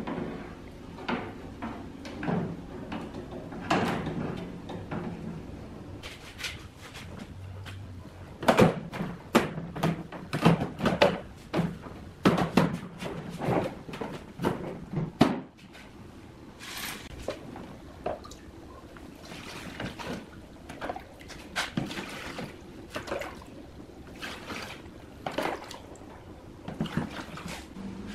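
Knocks and clicks of the plastic casing and parts of an evaporative air cooler being handled, with a dense run of sharp knocks in the middle. Later, water is poured into the cooler from a plastic jug.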